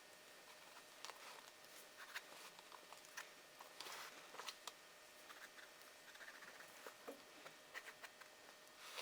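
Faint, irregular short scratches and light taps of a pencil drawing on paper.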